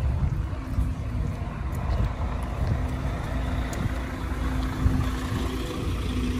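Street traffic: a heavy vehicle's engine running with a steady low rumble and hum, over general traffic noise.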